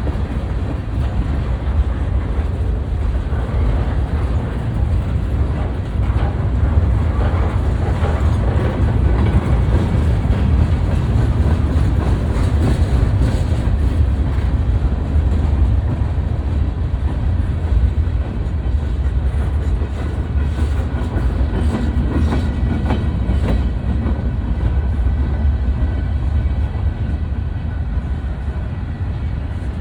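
BNSF freight train rolling past: a steady, loud rumble of cars on the rails, with scattered wheel clicks and clacks over rail joints.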